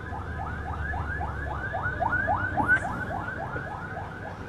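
An electronic siren-like alarm sounding a rapid, even run of rising whoops, about five a second, with a low hum underneath. A single small click comes about two-thirds of the way in.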